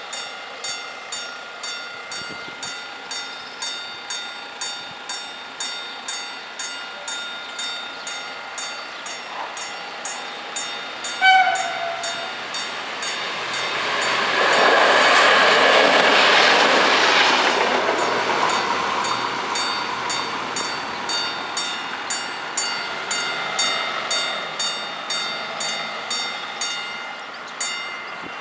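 Level crossing bell ringing steadily, about one and a half strokes a second. About eleven seconds in, a train gives a short horn blast, then runs past the crossing, its noise swelling and fading over about five seconds while the bell keeps ringing.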